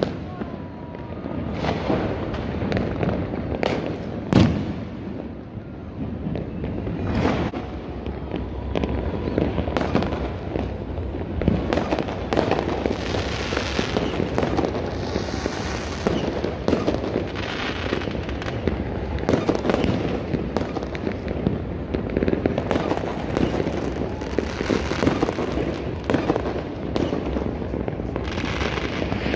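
Fireworks going off all around: a dense, continuous crackle and popping with frequent sharper bangs, the loudest about four seconds in.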